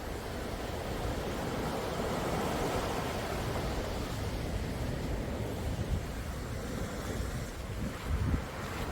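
Calm sea waves washing in steadily, with low gusts of wind buffeting the microphone, one stronger gust near the end.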